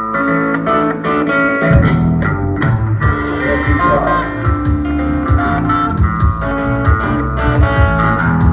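Live blues-rock band playing: an electric guitar plays a lead line of held notes, and about two seconds in the drums and bass guitar come in under it.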